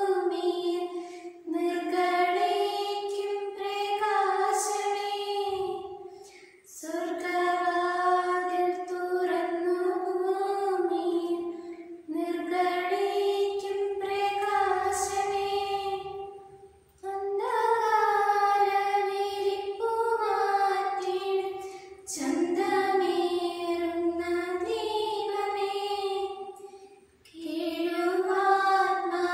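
Two young girls singing a prayer song together, unaccompanied, in slow held phrases of about five seconds with short breaks between them.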